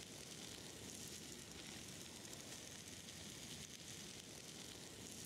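Fat sizzling in a steel griddle pan over a wood fire: a steady hiss with fine crackles.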